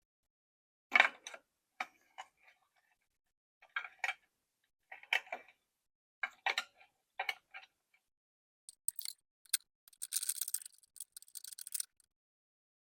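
Scattered small clicks and knocks of a screwdriver and small metal parts being handled on a lathe's control panel. About nine seconds in there is a run of quick, scratchy ticking lasting about three seconds, as screws are turned tight.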